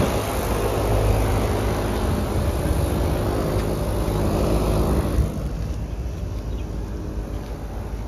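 Allied commercial packaged air-conditioning unit running, its condenser fan turning: a steady rush of air over a low hum, dropping in level about five seconds in.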